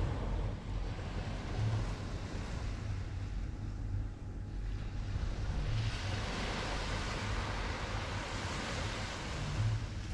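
Wind buffeting the microphone with low rumbles, over the steady hiss of small waves washing onto a sandy beach; the hiss swells louder about six seconds in.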